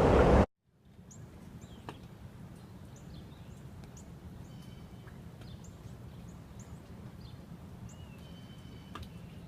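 Small birds chirping outdoors in the snow: many short, high chirps scattered over a quiet low steady rumble. Just before, a loud rushing noise cuts off suddenly about half a second in.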